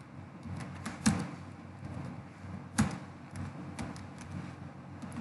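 Computer keyboard being typed on: scattered key clicks, with two much louder single strokes about a second in and just under three seconds in.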